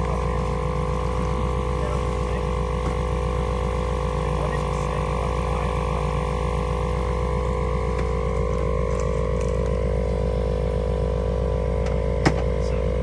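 A steady mechanical hum made of several held tones, with one sharp click about twelve seconds in.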